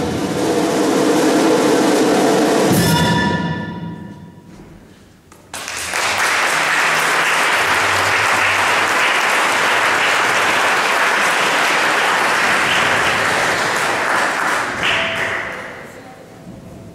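A small orchestra's final sustained chord dies away over the first few seconds. After a short lull, audience applause starts suddenly and runs steadily for about nine seconds before fading.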